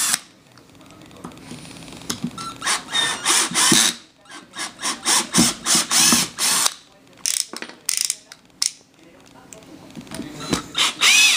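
Power drill backing screws out of a wooden shipping crate, run in many short bursts with clicking, and a rising whine near the end.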